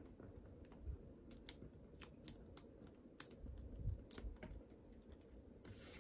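Faint, scattered small clicks and light rustling from hands working with small foam adhesive dimensionals and paper crafting pieces on a desk.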